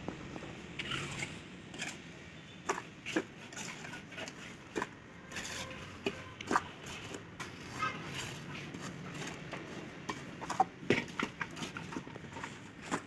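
Irregular light clicks and knocks from hand work on a wet cement planter, over a steady low background noise.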